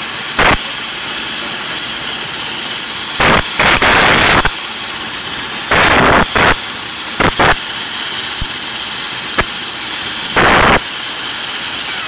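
Helicopter running on the ground before takeoff, rotor turning: a steady high turbine hiss. Loud buffets of rotor downwash and wind hit the microphone several times, the longest around four, six and ten and a half seconds in.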